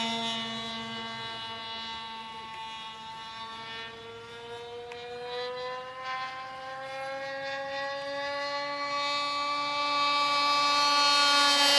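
MVVS engine of a radio-controlled Messerschmitt Bf 109 model aircraft running in flight overhead: a steady engine note that fades over the first few seconds as the plane moves off, then grows louder with its pitch rising slightly, loudest near the end as it comes back.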